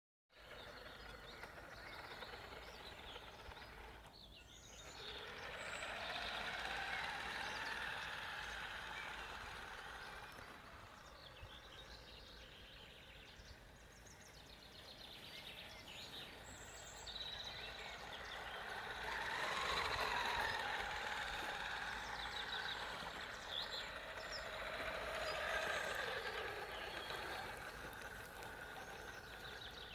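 Electric drive of a 1:16 scale RC model truck whining as it crawls. The pitch rises and falls as it speeds up and slows down, most clearly three times.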